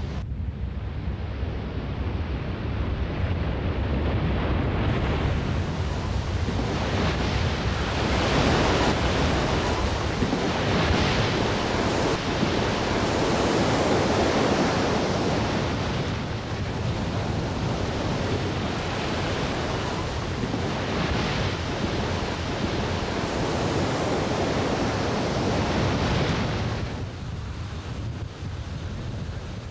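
Seawater rushing and breaking in repeated surges that swell and ease every few seconds, with wind noise on the microphone. It drops back near the end.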